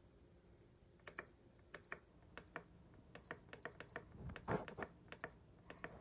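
Sycees bread maker's control panel beeping as its MENU button is pressed over and over to step through the programs to number 11, knead: about a dozen short, high beeps, each with a button click, with a brief louder noise about two thirds of the way through.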